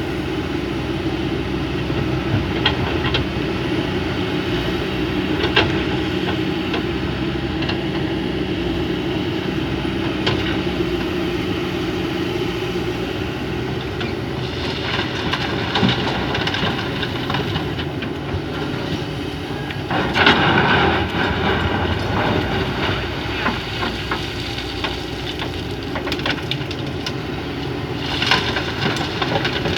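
Excavator's diesel engine running steadily while it digs and loads, with scattered metallic clanks and a louder burst of rattling about twenty seconds in.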